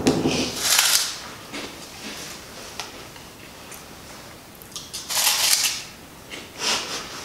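A few short crunching and rustling noises from a puffed corn snack stick being handled and tasted: one at the start, then two more near the end.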